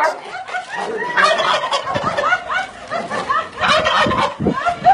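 A rapid string of short, high, rising-and-falling animal cries, about three a second, from a rooster and a dog fighting, with a few scuffling thumps.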